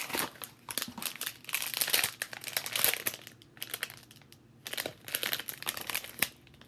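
Foil blind-bag wrapper crinkling as it is handled and pulled open, in bursts with a lull of about a second just past the middle.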